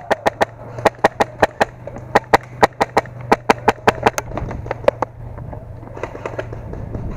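Airsoft guns firing a rapid string of sharp shots, about four a second, which stops about five seconds in.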